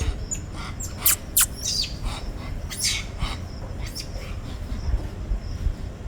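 A series of short, sharp, high-pitched animal squeaks or chirps, about half a dozen, the loudest two close together about a second in, over a low background rumble.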